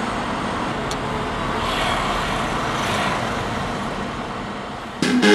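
Road traffic noise, an even rush from a vehicle passing that swells and fades. Music cuts in suddenly near the end.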